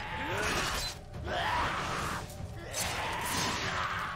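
Sound effects of an animated sword-fight scene: a noisy crashing din that swells three times, with short shouted cries from men.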